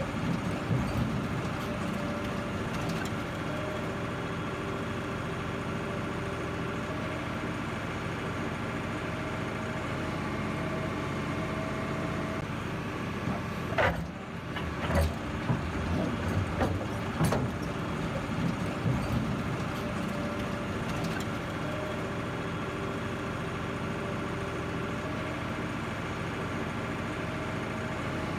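Backhoe loader's diesel engine running steadily as the machine drives over soft ground, with a few knocks and clunks about halfway through.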